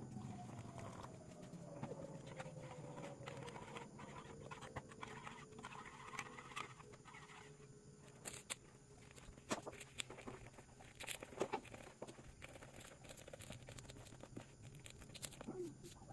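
Faint sounds of water being poured into a plastic mixing bowl, then pancake batter being stirred, with scattered clicks and a few sharp knocks of the utensil against the bowl. A short wavering call is heard near the end.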